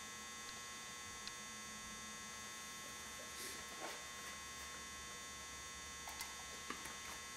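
Faint steady electrical hum with several thin whining tones held at one pitch. A few soft small clicks and scrapes sound now and then over it.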